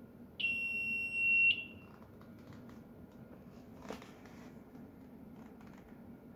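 Ludlum Model 316-3 gate frisker's alarm sounding one steady, high electronic beep for about a second. It grows louder just before it cuts off with a short fade. A single knock follows about four seconds in.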